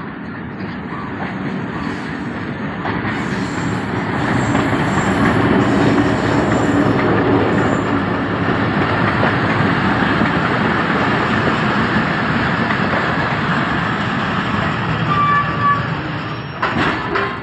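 A train passing close by: the rumble of wheels on the rails builds over the first few seconds, holds steady, then falls away near the end.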